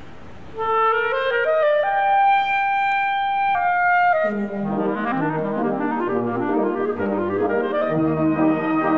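A solo clarinet comes in after a short pause and climbs in quick steps to a long held high note, then steps down. About four seconds in, the wind ensemble joins with brass and low parts, playing a moving accompaniment under the clarinet.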